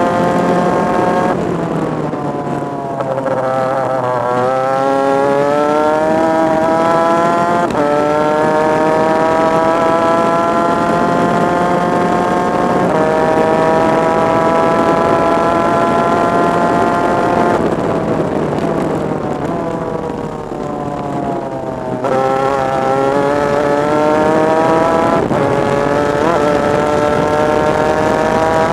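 Superkart's two-stroke engine at full race speed, heard close from onboard: the note climbs as it accelerates, steps down with upshifts about eight and thirteen seconds in, falls and softens off the throttle for a corner from about eighteen to twenty-two seconds, then climbs hard again with another shift near the end.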